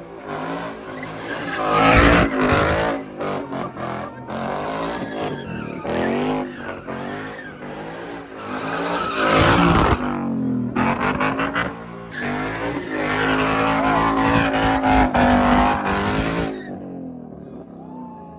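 A car's engine revving hard, its pitch climbing and falling in repeated surges, while the tires squeal and skid as in burnouts or donuts. The loudest surges come about two seconds in, around the middle, and in a long stretch that stops abruptly near the end.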